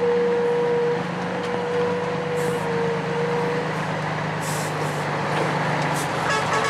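Heavily loaded Ford L8000 cargo truck on a rough dirt track: its engine runs with a steady low hum and a steady high whine. The whine ends about four seconds in and the engine hum falls away about six seconds in.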